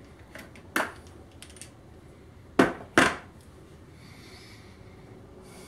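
Sharp metallic clicks and knocks from handling a hydraulic crimping tool after a finished crimp: one small click, then two loud knocks close together about halfway through.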